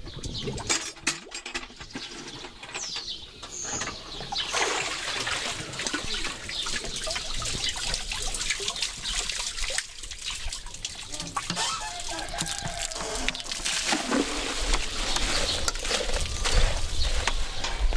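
Water splashing and trickling from a wooden bucket hauled up a well on its chain, with scattered clicks and knocks.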